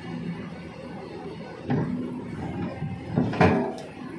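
Hydraulic excavators working in mud: a steady diesel engine hum, broken by two heavy knocks, one a little under two seconds in and a louder one about three and a half seconds in.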